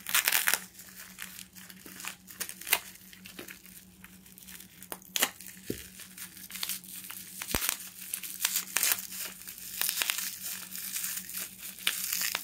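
Plastic bubble wrap being pulled off and crumpled by hand from around a coin capsule: irregular crinkling and crackling, with short sharp crackles scattered through.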